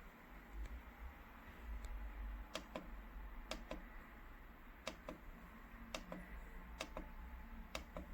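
Small plastic buttons on a projection alarm clock radio clicking as they are pressed and released. About six sharp clicks, mostly in close pairs, start a couple of seconds in, over a low handling rumble.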